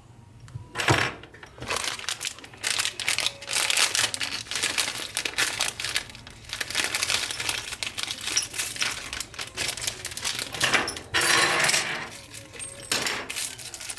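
Clicks, taps and rustling from small tools and parts being handled on a repair bench, with a louder scraping rustle around eleven seconds in.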